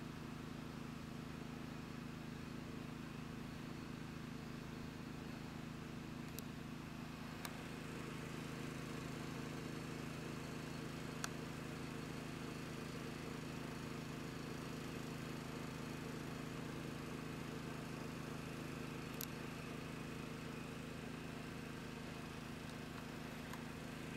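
A steady low hum, with four faint sharp pops scattered through it, typical of paintball markers firing in the distance; the loudest pop is near the middle.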